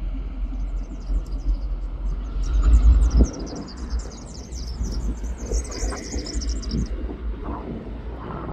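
Low rumble of diesel locomotive 2053 approaching slowly at the head of a coal train, loudest about three seconds in. Small birds chirp high over it until about seven seconds in.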